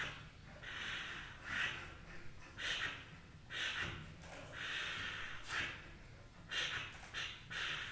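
Several performers breathing loudly and rhythmically into brass pipe air instruments that inflate red balloons, with repeated breathy blows and sharp intakes about once a second and no clear pitch.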